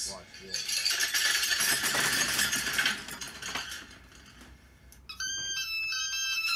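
A loud, dense rattling clatter with many quick clicks lasts about two seconds. From about five seconds in, a simple beeping electronic tune plays in steady stepped notes.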